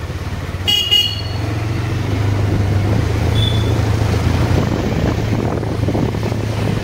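Motorcycle engine running steadily while riding, with a horn beeping twice in quick succession about a second in.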